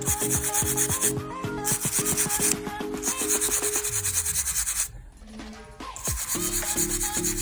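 Soft bristles of a nail dust brush sweeping back and forth over filed polygel nails, a steady hiss that pauses briefly a few times, over background music with a regular beat.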